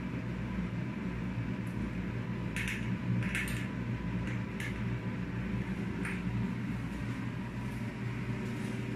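Steady low hum of room noise, with a few short clicks and scuffs about a third of the way in and again near the middle from a dog moving about on a tile floor.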